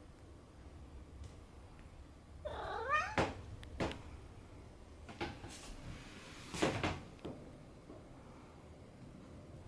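Orange tabby cat, its tail puffed up in agitation, giving one short wavering cry about two and a half seconds in. It is followed by a few sharp knocks and clicks, the loudest near seven seconds in.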